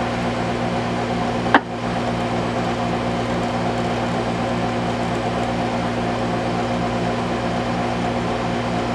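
Steady low electrical hum and buzz from a VHF ham transceiver's speaker during a gap between transmissions on a repeater net, with one sharp click about a second and a half in.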